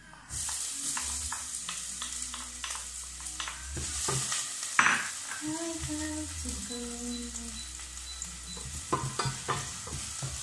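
Chopped onion dropped into hot oil in a stainless steel pot, sizzling from about a third of a second in, while a wooden spoon stirs it and knocks against the pot. A sharp, louder knock comes a little before the middle.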